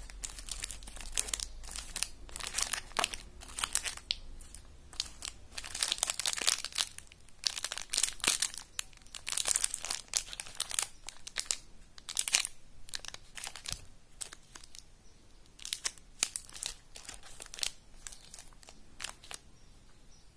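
Plastic and foil chocolate-bar wrappers crinkling in irregular bursts as hands shuffle the wrapped bars around.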